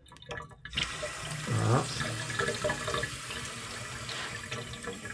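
Kitchen tap water forced through a carbon water-filter cartridge pressed onto the spout, running out and splashing into a stainless steel sink. The flow starts just under a second in and then runs steadily. This is a backflush rinse to clear debris from the cartridge.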